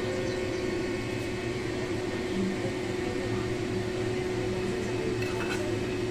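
Pot of water boiling on the stove: a steady hiss and hum, with a couple of faint clinks about five seconds in.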